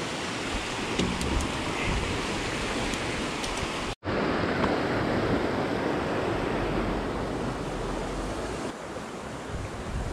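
Steady rush of water pouring through a spillway, with some wind noise on the microphone. The sound drops out for an instant about four seconds in.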